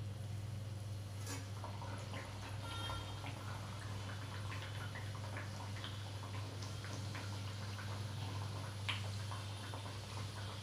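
Puris deep-frying in hot oil in a kadhai: a steady sizzle of small scattered crackles, with one sharper pop about nine seconds in, over a low steady hum.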